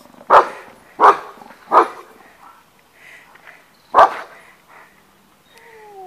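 A dog barking: three sharp barks about two-thirds of a second apart, then one more bark about four seconds in.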